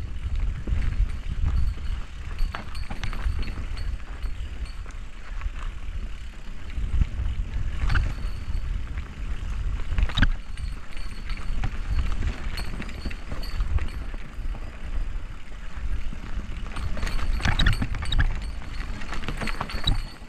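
Mountain bike riding down a dirt singletrack: a steady low rumble from the ride, with clattering rattles and knocks from the bike as it bumps over the trail. The knocks are sharpest about 8 and 10 seconds in, and there is a cluster of rattles near the end.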